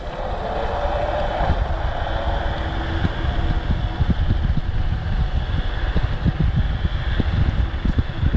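Wind buffeting the microphone as a NAMI Klima Max electric scooter accelerates to top speed: a steady, gusty rumble that builds over the first couple of seconds and then holds.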